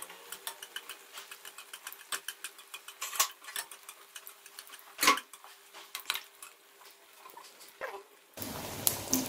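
Oil crackling and popping irregularly around bread-and-chicken-potato coins deep-frying in a metal kadai, with a metal spatula knocking against the pan a few times, loudest about three and five seconds in. About eight seconds in a steadier sizzle takes over.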